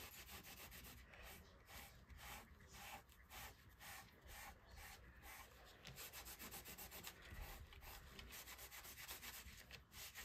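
Faint, repeated wiping strokes, about two to three a second: a cloth or towel rubbing water-sprayed ink off a hot foil plate to clean it.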